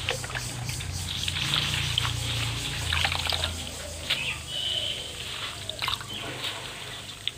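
Chopped taro leaves being swished in a steel bowl of water and lifted out by hand: irregular splashing and dripping water with the rustle of wet leaves.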